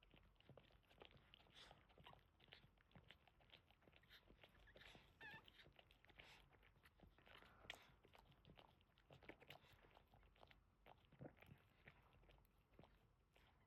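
Faint, irregular wet licking and smacking from a Boston terrier mother cleaning a newborn puppy, with a brief high squeak about five seconds in.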